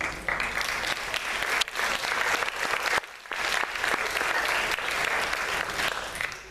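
Audience applauding, a dense clatter of many hands clapping that starts at once, drops out briefly about halfway and fades out near the end.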